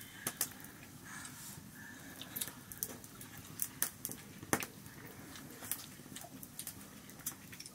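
Scattered light clicks and clinks of people eating rice with their hands from steel plates and bowls, fingers scraping and tapping the metal at irregular moments, with one sharper tick about four and a half seconds in.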